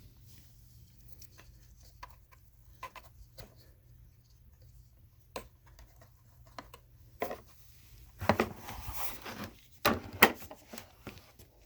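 Scattered clicks and knocks of something being handled, with a louder stretch of rubbing and clattering about eight seconds in.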